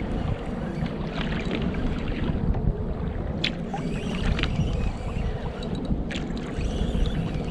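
Sea water sloshing against a kayak's hull with wind on the microphone: a steady low rush, broken by a couple of sharp clicks about three and a half and six seconds in.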